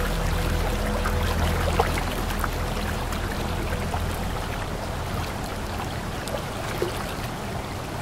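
Waterfall water rushing and splashing in a steady, even wash. A low humming drone of sustained tones sits underneath and fades out over the first couple of seconds.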